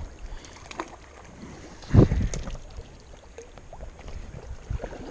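River water splashing and sloshing as a hooked brown trout is played close in and brought to the net, with wind rumbling on the microphone and one louder burst about two seconds in.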